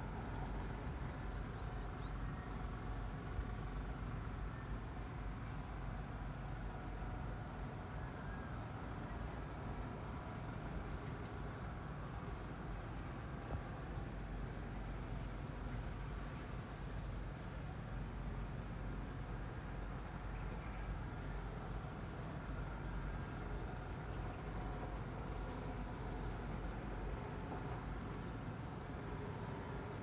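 Heavy construction machinery running at a distance: a steady low engine rumble. Over it a bird repeats a short run of four or five quick, very high chirps, falling at the end, every three to four seconds.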